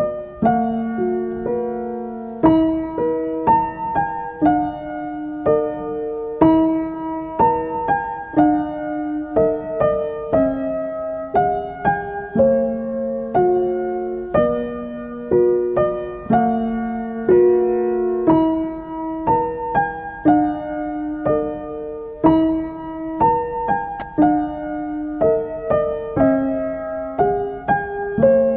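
Background music: a gentle, unhurried solo piano piece, each note ringing out before the next.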